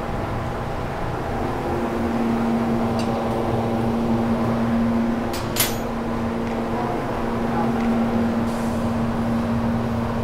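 Steady machine hum in an engine dyno room, growing stronger about a second and a half in, with a single sharp click about halfway through.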